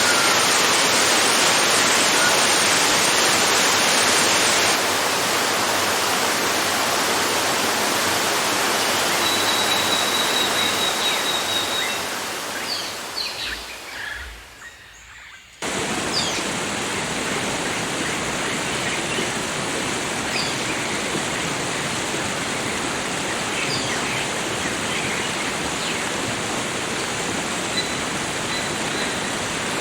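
Steady rushing of water pouring over a small garden waterfall, with occasional faint bird chirps. The water sound fades away about halfway through and cuts back in suddenly a couple of seconds later.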